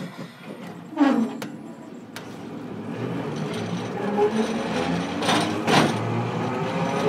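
Hiroden 700-series tram heard from on board: a clunk about a second in, then the traction motors' whine rising in pitch as the tram picks up speed, with two heavy knocks of the wheels over rail joints near the end.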